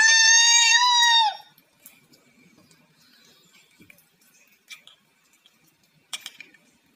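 A high, shrill squeal of laughter, held steady for about a second and a half, then cut off; a few faint clicks follow.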